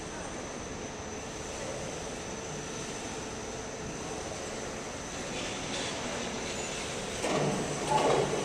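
CNC four-side edge cutting machine running during production: a steady mechanical hum with a constant high-pitched tone over it, and a louder, rougher burst about seven seconds in.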